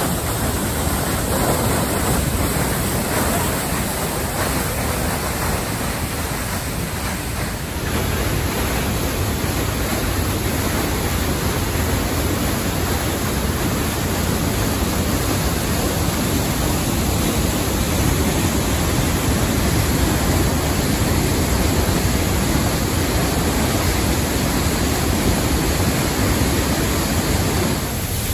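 A large waterfall heard up close: a loud, steady rush of falling water and spray. About eight seconds in the sound shifts slightly to a deeper rush.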